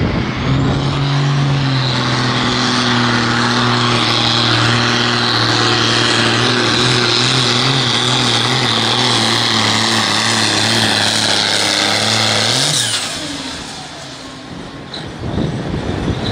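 A Pro Farm pulling tractor's turbocharged diesel engine runs at full throttle while pulling the sled, a steady engine note with a high turbo whine over it. About thirteen seconds in the engine revs up briefly, then drops away as the pull ends.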